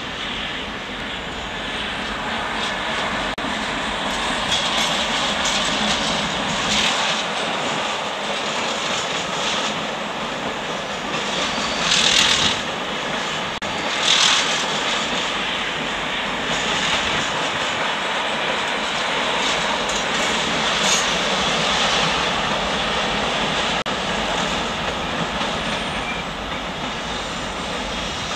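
Steady running noise of a train, with two brief louder rushes of noise about twelve and fourteen seconds in.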